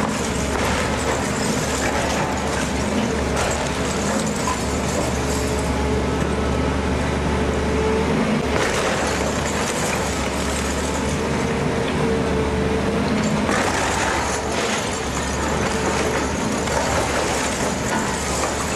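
Volvo excavator's diesel engine running under load, with a hydraulic whine that comes and goes as the boom and bucket work. The bucket breaks into a brick and concrete wall, with two louder rushes of falling masonry about halfway and two-thirds of the way through.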